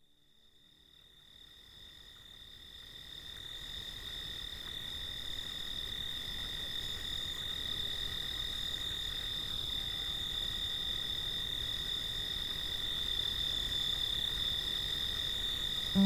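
Cicadas calling: a steady high-pitched drone with a weaker, lower steady tone beneath it and a pulsing call repeating about every two-thirds of a second above it, fading in over the first few seconds.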